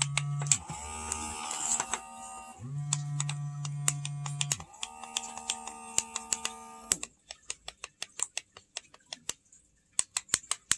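OSIM uGalaxy eye massager's motor humming in vibration bursts, stopping and starting again several times. In the last few seconds the hum is gone and a run of quick, sharp clicks is heard.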